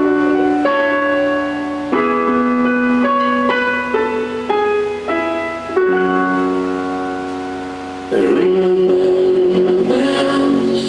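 Music with sustained keyboard-like chords that change every second or so. About eight seconds in, a wavering, gliding tone with a rushing noise comes in over the music.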